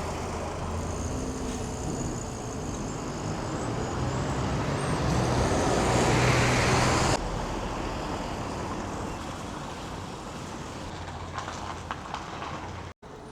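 A motor vehicle passing on the street, with engine noise that swells to its loudest about seven seconds in, then drops off sharply and fades.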